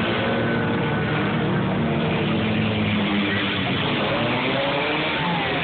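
Engines of several compact demolition-derby cars and pickup trucks running and revving together in a steady, loud din, with some engine pitches rising and falling about four to five seconds in.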